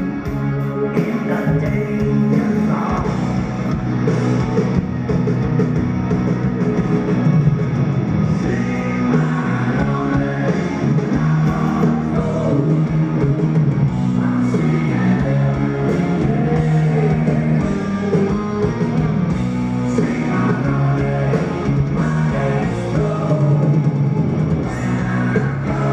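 Live rock band playing loudly through a concert PA, heard from within the audience: drum kit, electric guitars and a male lead singer.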